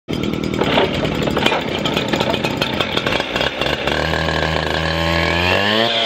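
Two-stroke engine of a handheld gas concrete cut-off saw running: rough and uneven at first, settling into a steady idle about four seconds in, then revving up sharply near the end.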